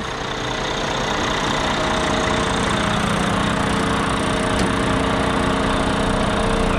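DD15 Detroit diesel inline-six of a Terex FD4000 concrete mixer truck idling steadily, growing a little louder about two seconds in.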